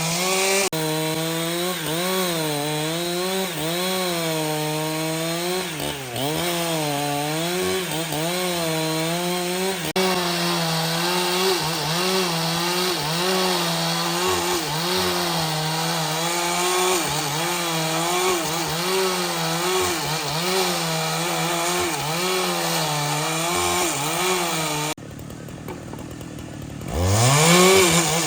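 A chainsaw cutting wood, its engine pitch dipping and recovering as the load changes. Near the end the sound drops away, then a motor speeds up from low back to full pitch.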